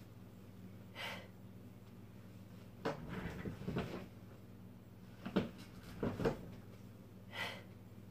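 Office chair creaking and knocking as a person sits down into it and rises out of it during repeated squats, with short breaths out between, over a low steady hum.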